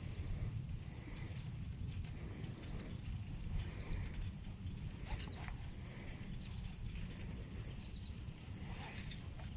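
Outdoor marsh ambience: a steady low rumble with short, high chirps coming in twos and threes every second or two.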